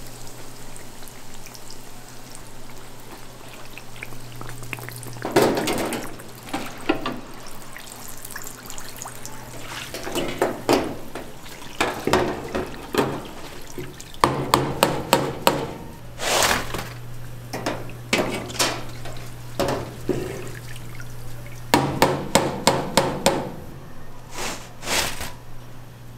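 Croquettes deep-frying in hot oil in a commercial steel fryer, sizzling steadily over a low hum. A wire mesh skimmer basket knocks and clanks against the fryer's steel many times, sometimes in quick runs of five or six knocks, as the fried croquettes are lifted out.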